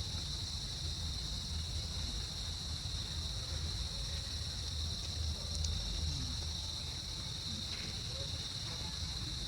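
Insects chirring in a steady high-pitched drone that never lets up, over a low rumble.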